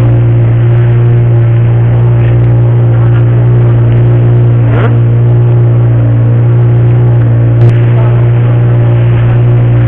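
An engine running loud and close at a constant speed, with an even, unchanging pitch and no revving. A single short click comes near the end.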